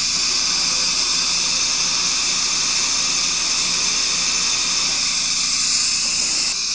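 Dental implant handpiece drilling the upper jaw through the sleeve of a surgical guide, with a metal surgical suction working at the site: a steady hiss with a faint low hum under it. The hiss drops off about six and a half seconds in, as the drill comes out of the guide.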